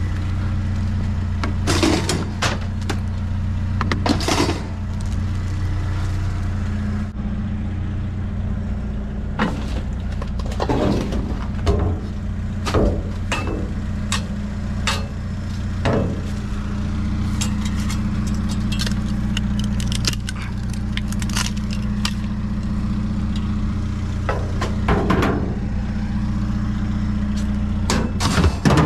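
Truck engine idling steadily, with scattered knocks and rattles of items being handled.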